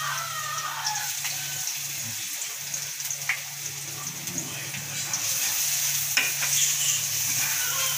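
Minced garlic sizzling in hot oil in a wok as chopped red onion is scraped in from a plate with a spatula, with a few sharp clicks of the spatula against the pan.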